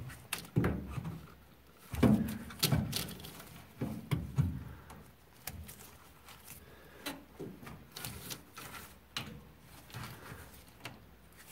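Irregular clicks, knocks and light rubbing as gloved hands work the plastic drain pump housing and filter cap of a Whirlpool Duet front-loading washer back into place. The knocks are louder in the first few seconds and fainter and sparser after.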